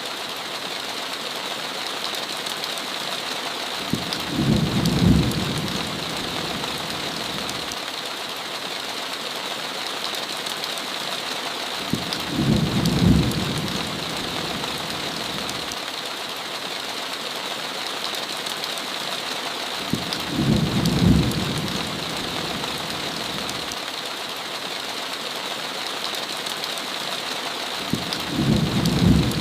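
Steady hiss of heavy rain, with a low rumble of thunder four times, evenly about every eight seconds, each swelling and fading over a second or two.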